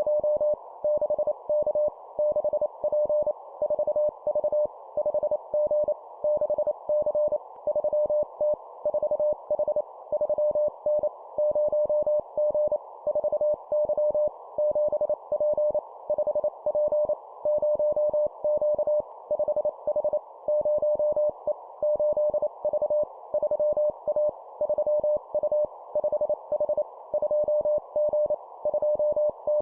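Morse code (CW) at 25 words per minute: a single steady beep keyed in quick dots and dashes, sending short two-character groups of letters and numbers with pauses between them, over a constant narrow band of hiss.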